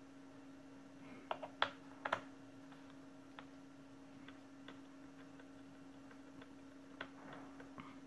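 Small screwdriver working screws out of the plastic bottom case of an HP Compaq Presario CQ61 laptop, heard as faint clicks and taps. A quick cluster of louder clicks comes about one and a half to two seconds in, followed by scattered light ticks, over a faint steady hum.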